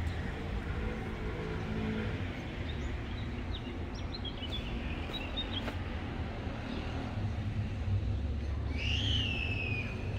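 Small bird chirps in the middle, then one clear call sliding downward near the end, over a steady low rumble.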